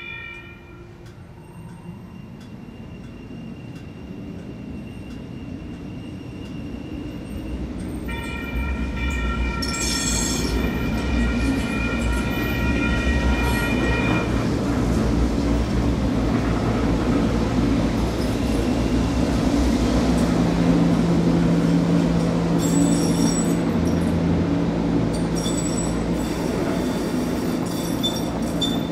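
Sacramento light rail trains (Siemens-Duewag U2a and CAF S200 cars) rolling through a street grade crossing. Rumble on the rails grows steadily louder, and high-pitched squealing from the wheels comes around 10 s and again near the end. A sustained high tone is held from about 8 to 14 s, and a steady low hum sets in about two-thirds of the way through.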